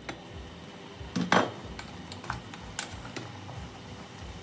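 Glass pot lid lifted off and set down with a clatter about a second in, then a wooden spatula knocking and scraping against the pot as the goat meat is stirred, a few separate taps.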